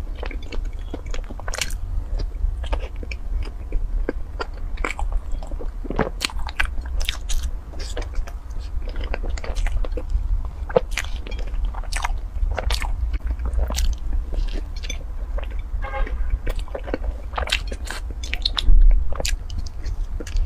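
Close-miked biting and chewing of a cream-filled, floss-coated bread roll: a steady run of short wet clicks and crackles from the mouth, over a constant low hum. A single dull thump near the end stands out as the loudest sound.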